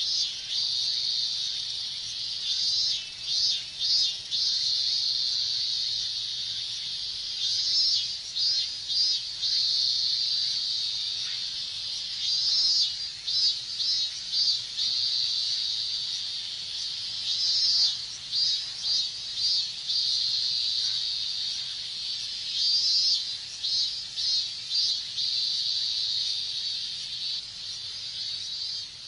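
Chorus of robust cicadas (minmin-zemi) singing: a steady high drone, with bouts of rapidly pulsing calls rising out of it every few seconds.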